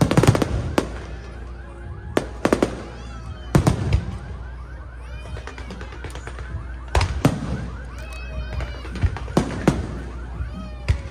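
Fireworks show: aerial shells bursting in a series of loud bangs at irregular intervals, several in quick pairs and triplets, over a steady low rumble.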